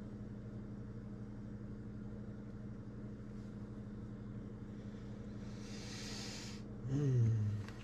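A steady low hum holding a few constant tones runs throughout, like a motor or electrical appliance. Past the middle a brief hiss rises and stops sharply, then comes a short low vocal sound that falls in pitch, the loudest moment.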